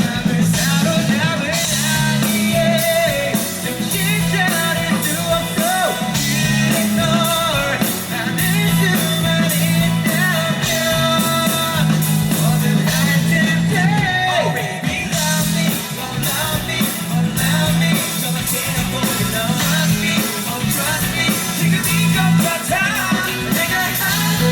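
Live rock band performing through a PA: a lead singer's voice over bass, guitar and a drum kit playing a steady beat.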